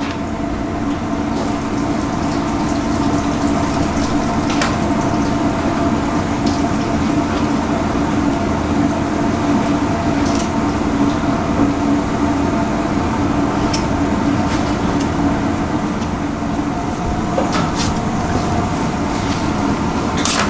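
Steady hum of running kitchen machinery: a constant drone with a low tone and a fainter higher tone above it, with a few faint clicks and rustles as pastry sheets are handled.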